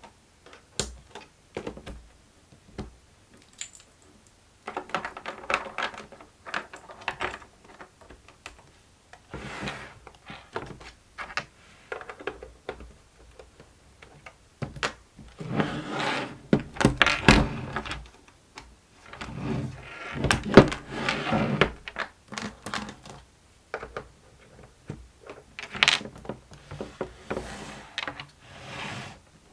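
Hands working the plastic parts of a fidget busy board toy: irregular clicks, taps and thunks, with denser clattering stretches past the middle.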